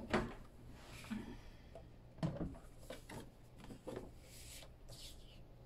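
Card stock being handled and shifted, with a few knocks as a slide paper trimmer is set down on the cutting mat; the loudest knock comes about two seconds in. Short rustles of paper sliding near the end.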